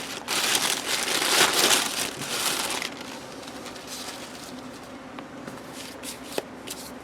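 Tissue paper rustling and crinkling as it is handled and unwrapped, busiest for about the first three seconds, then only faint handling noise.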